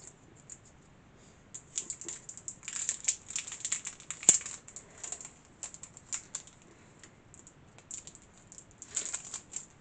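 Plastic crinkling and clicking in irregular clusters as a clear plastic embossing folder is handled, with one sharp click about four seconds in.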